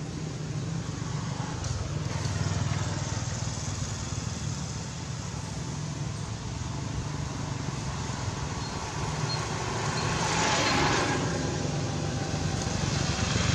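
Motor vehicle traffic running steadily, a low engine hum under road noise, with a louder swell about ten seconds in as a vehicle passes.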